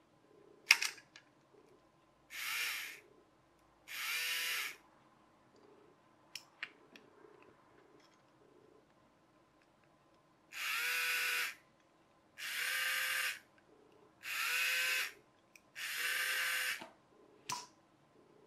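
Small toy DC motor and its plastic gear train whirring in six short bursts, each under a second and rising in pitch as the motor spins up. The motor runs whenever one of the toy train's reversing switch contacts is pressed in, one contact giving clockwise and the other anti-clockwise. There is a sharp click about a second in.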